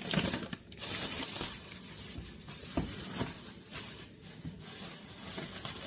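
Grocery packaging rustling and crinkling as items are handled, with a few light knocks as things are set down.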